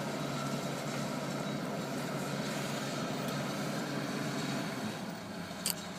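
Heavy equipment's engine running steadily as the crew moves the boat, easing off about five seconds in; a brief click near the end.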